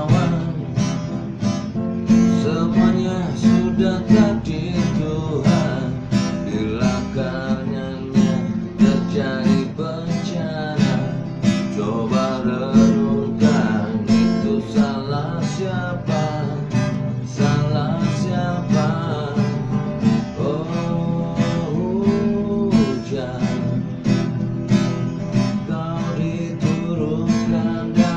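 Instrumental passage of a pop song: strummed acoustic guitar over a steady beat, with a melody line winding above it.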